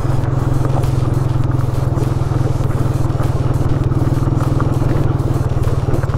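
Motorcycle engine running at a steady speed while riding, with scattered small knocks and rattles from the bike on a rough stone trail surface.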